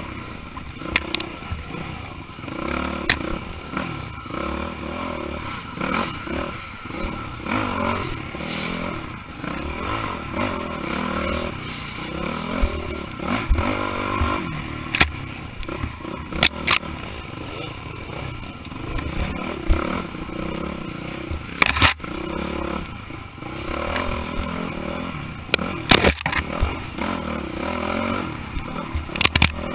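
Dirt bike engine revving up and down under constant throttle changes, heard from on the bike. Sharp knocks and clatter come through several times as the bike jolts over rough ground.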